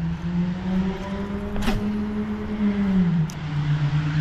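Penn Slammer 4500 spinning reel being cranked steadily on a fast buzz-bait retrieve: a steady whirring hum whose pitch dips about three seconds in, with a short sharp click a little before two seconds.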